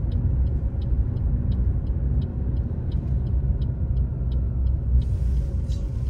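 Car engine and road noise inside the cabin, with the turn indicator ticking evenly about three times a second as it signals left for a mini roundabout. A hiss of passing air or tyre noise rises about five seconds in.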